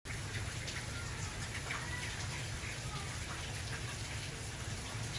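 Heavy rain falling steadily on the street, lawn and pavement.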